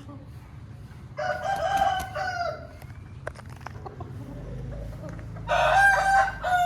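Aseel rooster crowing twice, each crow about a second and a half long, the second near the end.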